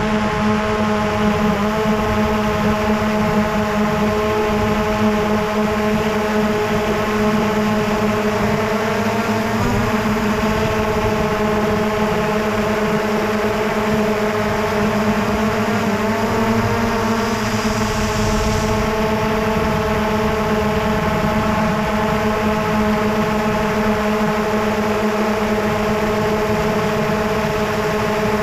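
Quadcopter drone's motors and propellers humming at a steady pitch, the pitch wavering slightly a few times.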